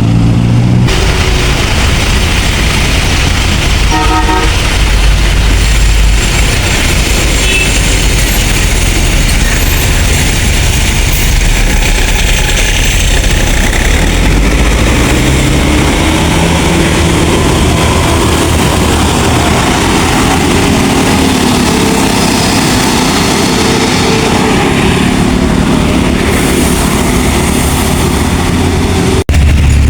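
Large bus diesel engines running loudly as buses pass on the road, the engine note rising and falling. A short horn toot sounds about four seconds in.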